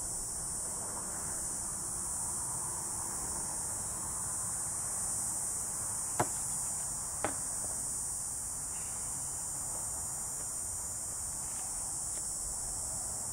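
Insects buzzing steadily at a high pitch, with two sharp knocks about six and seven seconds in.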